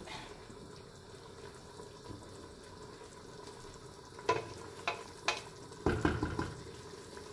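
Harira base of meat, herbs and vegetables cooking in oil in a pot before the water goes in, a faint steady sizzle. A utensil clicks against the pot three times about four to five seconds in, followed by a short stirring clatter around six seconds.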